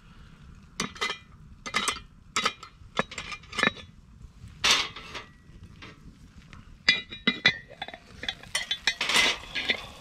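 Irregular metal clinks and clanks of a cast iron Dutch oven being handled, its lid knocked and lifted off near the end.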